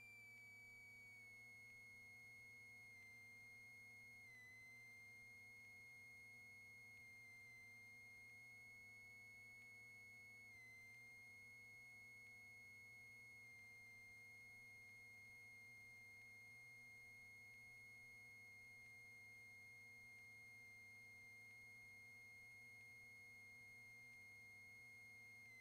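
Near silence: only a faint, steady high-pitched whine with a faint low hum beneath it. The whine dips slightly in pitch twice, about four and ten seconds in.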